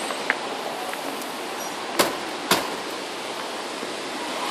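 Steady hiss of heavy rain falling during a thunderstorm, with two sharp clicks about half a second apart around two seconds in.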